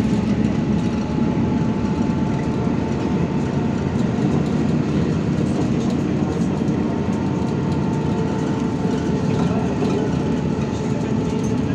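Steady running noise of a MAN Lion's Classic SL 283 city bus under way, heard inside the passenger cabin: engine drone and road rumble at an even level, with a faint steady whine above it.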